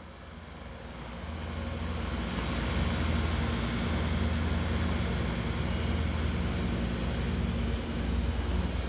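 Bobcat T770 compact track loader's diesel engine running steadily as the machine drives, growing louder over the first two to three seconds and then holding level.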